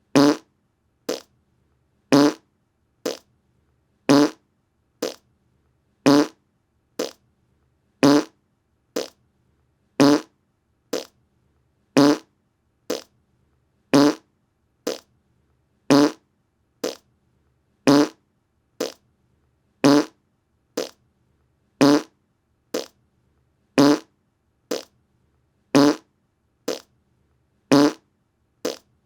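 Short fart sounds repeated about once a second, alternating a louder, slightly longer one with a softer, shorter one.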